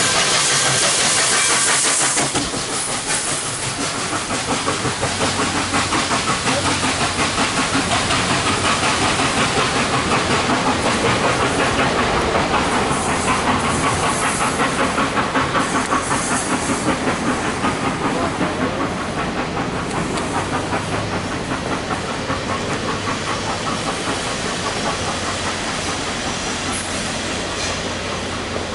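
Nickel Plate Road 765, a 2-8-4 steam locomotive, passes close by with a loud hiss of steam for the first couple of seconds. Then comes a steady, even beat of exhaust and the clatter of passenger cars rolling past, easing off slowly toward the end.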